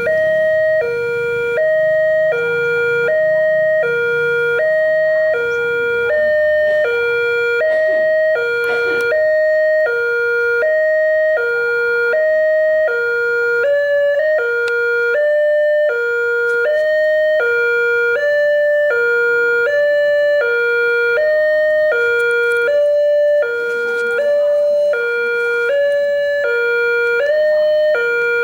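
Railway level-crossing warning siren sounding a continuous two-tone alarm, a high and a low tone swapping every half second. From about fourteen seconds in, each high tone begins with a short upward slide. The uploader calls the siren faulty ('sirine error').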